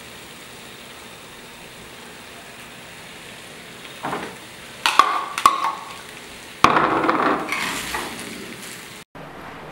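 Food sizzling quietly in a stainless steel sauté pan. About four seconds in, cooked corn kernels are tipped in from a bowl, then a metal spoon clinks twice against the pan and scrapes and stirs the mixture, loudest just past the middle, before the sound cuts off abruptly near the end.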